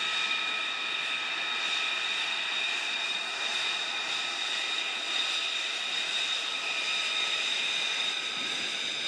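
F-35 fighter's single F135 turbofan jet engine running at taxi power: a steady rushing jet noise with a high, even whine.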